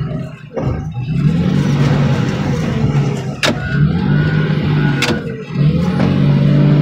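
Heavy machine's engine running hard, its pitch rising and falling with the load, as it works a car over. Two sharp cracks ring out, about three and a half and five seconds in.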